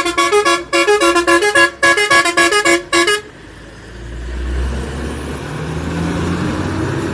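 A vehicle's musical horn playing a quick tune of short stepped notes for about three seconds, then cutting off suddenly; a low rumble swells up after it. Heard played back through laptop speakers.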